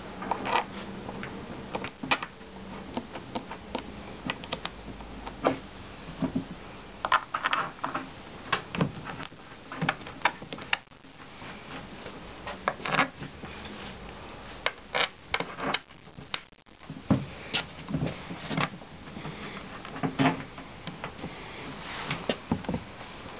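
Irregular clicks, taps and light scraping of hand assembly: screws being turned with a hex key into a bunk-bed panel, and parts and hardware being handled.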